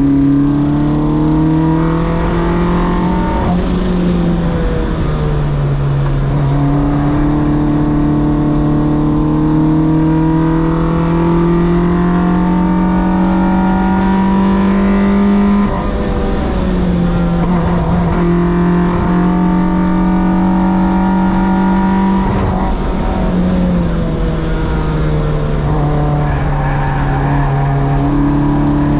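Track-prepared car's engine running hard on a circuit lap. The revs climb slowly and drop sharply three times, about 5, 16 and 23 seconds in, at gear changes or lifts.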